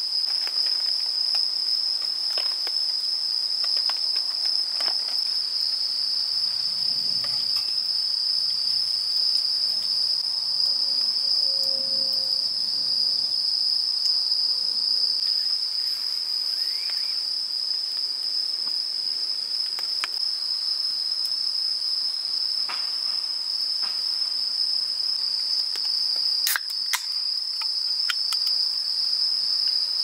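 A chorus of crickets chirring, a continuous high trill that holds steady throughout, with scattered small crackles and clicks from a wood campfire and a few sharper clicks a few seconds before the end.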